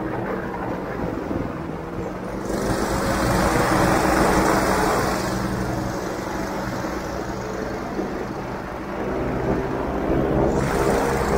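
Airboat engine and propeller running steadily, with the rush of the propeller swelling louder a few seconds in, easing off, then swelling again near the end as the throttle is opened and closed.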